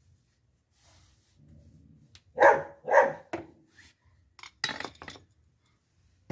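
A dog barking: two loud barks about half a second apart and a weaker third, then a quick run of clinks about a second later.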